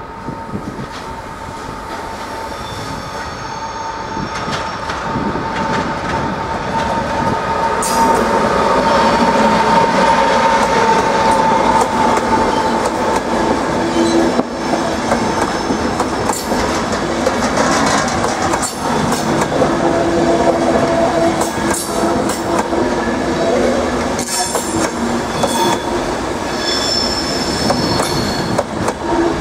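ÖBB class 1216 Taurus electric locomotive and its passenger coaches rolling slowly past through curved station pointwork. A steady whine is heard as the locomotive nears, then wheels squeal on the curves and click over rail joints and points. The sound grows louder over the first several seconds as the train comes close.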